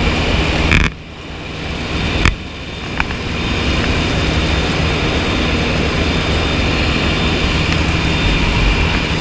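Aircraft engine droning steadily, heard from on board. About a second in the sound drops sharply and builds back up over the next two seconds, with a couple of sharp clicks.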